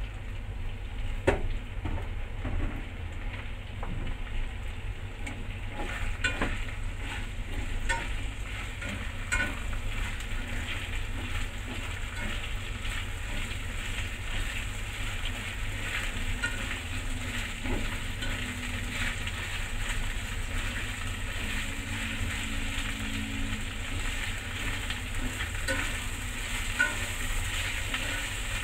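Sliced onions, bell peppers and green beans sizzling steadily in hot oil in a metal pan while being stir-fried with chopsticks, with scattered sharp clicks of the chopsticks against the pan.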